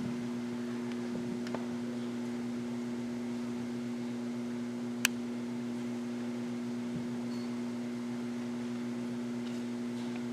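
Steady low electrical hum with a faint hiss, pitched tones holding unchanged throughout, broken by a single sharp click about five seconds in.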